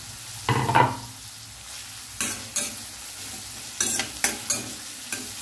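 Onions, garlic and green chilli sizzling in oil in a stainless steel kadai while a steel spoon stirs them, scraping across the pan about half a second in and then clinking sharply against the metal several times.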